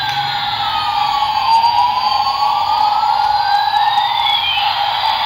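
Twin-rotor military toy helicopter playing its electronic sound effect: a steady buzzing tone under a slow siren-like wail that falls in pitch over the first second and a half, then climbs back up near the end.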